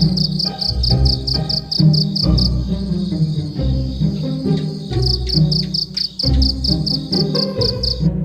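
A cricket chirping at about five chirps a second, in two runs with a gap of a couple of seconds between them, over background music with low plucked notes.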